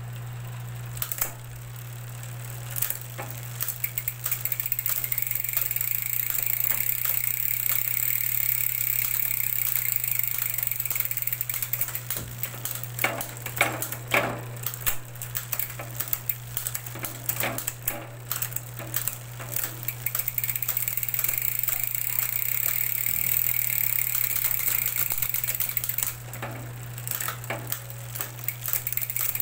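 Bicycle drivetrain spinning: a 10-speed chain running over an 11-46T cassette through an LTWOO A7 rear derailleur, with a steady whir and hum and repeated clicks as it shifts between cogs, the clicks bunched most thickly about halfway through and again near the end.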